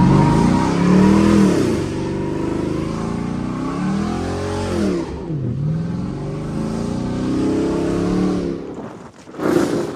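The SS's engine being revved hard three times, each rev climbing in pitch and falling back.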